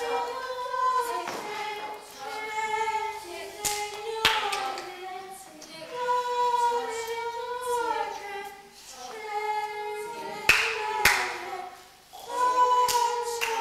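Unaccompanied voices singing long, sliding held notes in phrases of about two seconds, with short breaks between them. A few sharp hits cut through the singing, two of them close together near the end.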